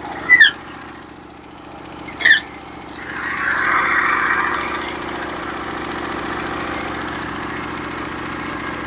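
Portable bandsaw sawmill's gas engine running steadily, with two short high squeaks in the first few seconds. About three seconds in the engine's sound grows louder and stays there.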